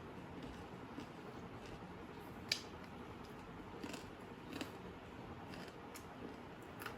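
A few sharp light clicks and snips from small objects being handled, the sharpest about two and a half seconds in, over a low steady hiss.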